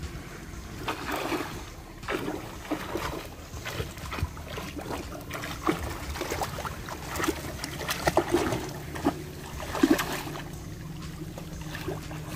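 Shallow seawater splashing and sloshing as a child swims and kicks through it: irregular splashes throughout, louder and more frequent in the second half, over a steady low rumble.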